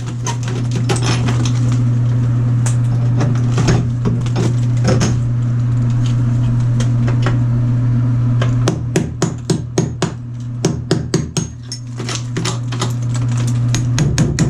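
Rapid hammer strikes chipping out shower-wall tile and its thick mortar bed, several blows a second, in a short run at the start and a longer run over the last six seconds. A steady low hum runs under the strikes.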